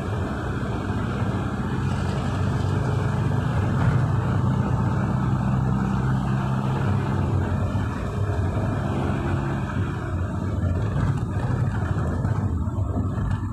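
Steady engine and road noise of a moving car heard from inside the cabin, a low drone that swells a little a few seconds in.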